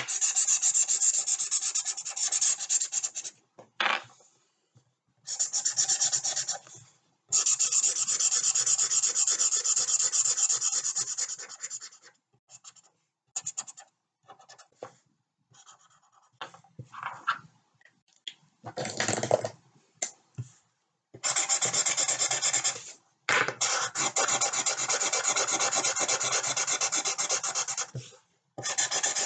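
Pen scribbling rapidly back and forth on paper to colour in a drawing. The strokes come in runs of a few seconds, with short pauses and a few single strokes between them.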